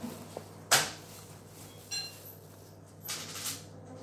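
Thin plastic bag crinkling in the hands as a baked calzone is handled over it: a sharp crackle about a second in, the loudest sound, and a longer rustle near the end. A brief ringing clink about two seconds in.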